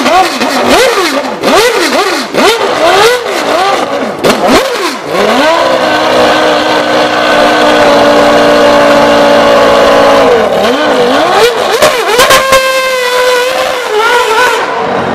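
Williams Formula One car's engine, just started, revving in quick blips, then held at high revs for about five seconds before dropping back. After a few more blips it rises once more as the car pulls away, and fades near the end.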